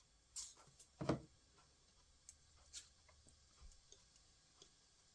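Faint taps and clicks of cut paper pieces being handled and pressed down onto a paper plate, the loudest a soft thump about a second in.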